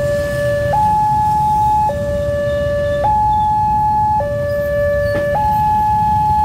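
Railway level-crossing warning alarm sounding its electronic two-tone signal, a low tone and a higher tone alternating about once a second, warning of an approaching train. Traffic rumble lies underneath, and there is a brief click about five seconds in.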